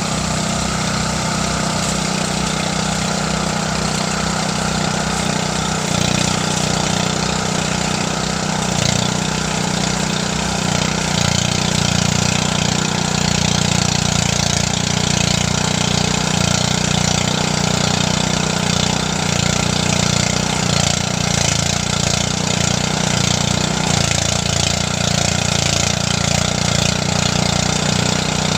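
Engine-driven rice threshing machine running steadily with a low hum, getting a little louder about six seconds in.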